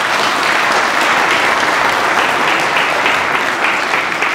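Audience applauding: many hands clapping in a steady, loud round of applause.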